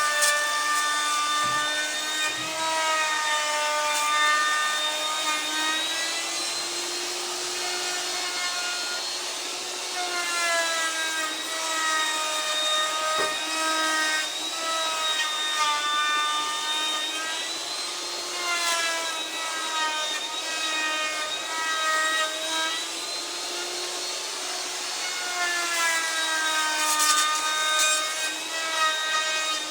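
Electric woodworking power tool running continuously, its motor whine sagging and recovering in pitch every few seconds as it cuts into the wood, over the noise of the cutting.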